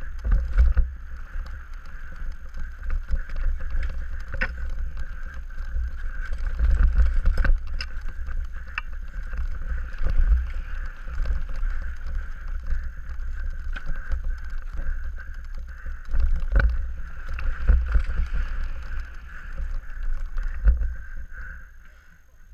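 Downhill mountain bike ridden fast over a rough forest trail, heard from a helmet-mounted action camera: wind buffeting the microphone, with repeated sharp knocks and rattles from the bike over bumps and a steady high buzz underneath. It quietens near the end as the bike slows.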